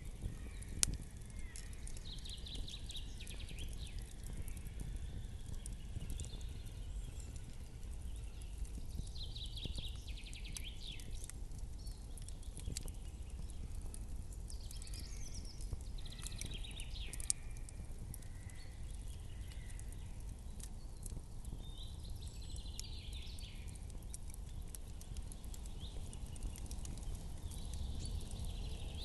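Campfire crackling, with scattered sharp pops from the burning wood over a steady low rumble. Short higher-pitched sounds come and go every few seconds.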